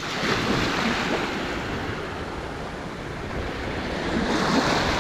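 Sea waves washing onto the shore, with wind buffeting the microphone. The surf swells louder about four seconds in.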